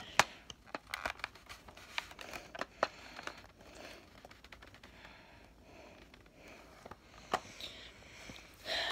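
Plastic parts of a Nerf blaster being handled and fitted together: scattered sharp plastic clicks and knocks, most of them in the first three seconds and one more about seven seconds in, with faint crinkling between them.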